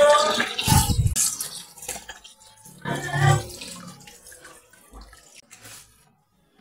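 Water splashing and sloshing in a plastic basin at a sink as hands rinse raw meat under the tap, loudest in the first second and fading toward the end.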